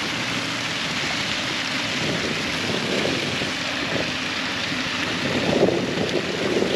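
Wind buffeting the microphone outdoors: a steady rushing noise that swells a little near the end.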